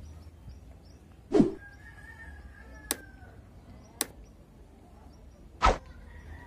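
Subscribe-button animation sound effects: a whoosh, then two sharp mouse-style clicks, then a second whoosh. They play over a steady outdoor background.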